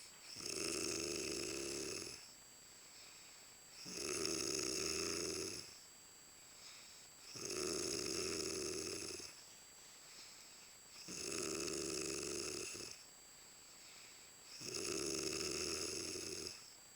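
A sleeping woman snoring loudly: five long snores in a steady rhythm, each about two seconds, one every three and a half seconds or so.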